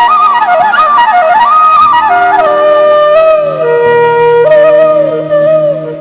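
Background music: a flute playing an ornamented, gliding melody over held drone notes, fading near the end.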